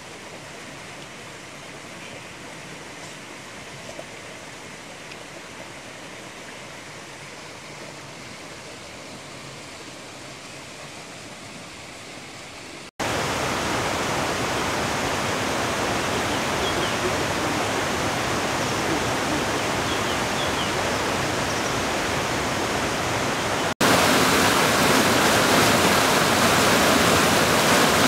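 Rushing mountain stream, water pouring over and between boulders in a steady noise with no rhythm. It jumps abruptly louder about halfway through and again near the end.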